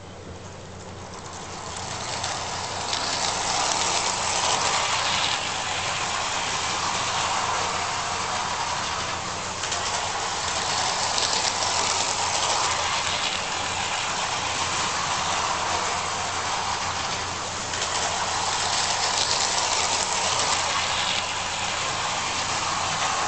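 Voltamp two-truck electric toy trolley running laps of an oval of metal track: motor whir and wheels rattling on the rails. It builds up in the first couple of seconds, then swells each time the trolley passes close, about every seven to eight seconds, over a steady low hum.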